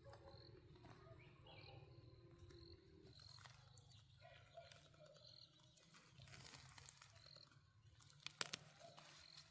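Near silence: faint outdoor background with short high chirps repeating about every second and a few sharp clicks near the end.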